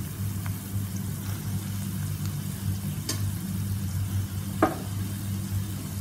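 Onion, green chillies and freshly added chopped carrot, cabbage and capsicum sizzling steadily in hot oil in a pan. Two sharp knocks come about halfway through and again a second and a half later as more vegetables go in.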